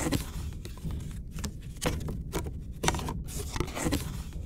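Small jewelry box being opened and handled: a run of irregular clicks and scraping sounds.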